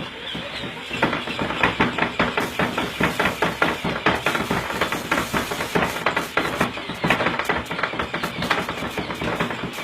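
Baby burping machine's mechanical arm patting a baby's back in rapid, repeated strikes, about four or five a second, starting about a second in.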